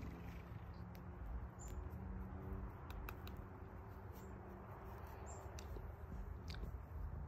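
A mouse caught by a cat giving a few short, faint, high-pitched squeaks over a low rumble.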